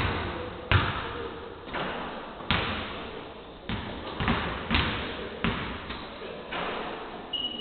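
Basketballs bouncing on a wooden sports-hall court: a string of irregular thuds, roughly one every half second to two seconds, each ringing out in the echo of the big hall.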